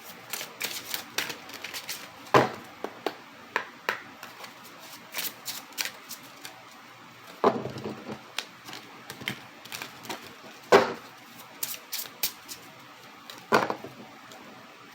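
A deck of oracle cards being shuffled and handled: a run of quick light card clicks and flicks, with a few louder taps of the deck, four times in all.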